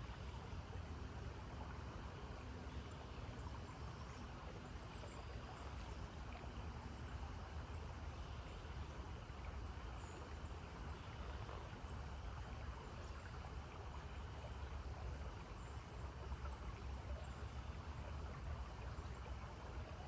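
Steady rush of a flowing stream, with low wind rumble on the microphone and faint short high chirps now and then.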